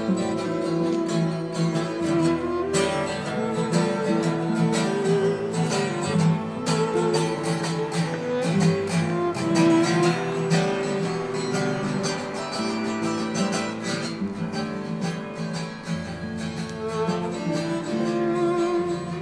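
Acoustic guitar music, plucked and strummed, with a sustained, wavering melody line above it.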